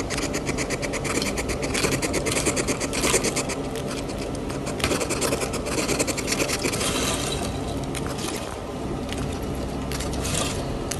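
Pet hedgehog eating from a spoon held at its mouth: a rapid, unbroken run of small clicks and smacks from its chewing and licking.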